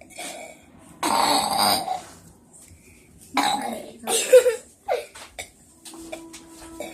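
A person burping deliberately, several times: one long burp about a second in, then two shorter ones a few seconds later.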